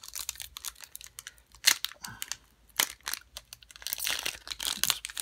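Foil trading-card pack wrapper crinkling and tearing as it is opened and handled, in scattered sharp crackles, with a denser run of crinkling near the end.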